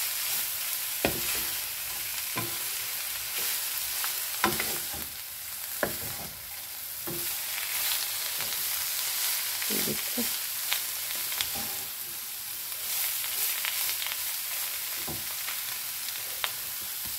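Shredded cabbage, carrots and green pepper sizzling as they are stir-fried in a frying pan. A wooden spatula turns them, knocking and scraping against the pan every second or two.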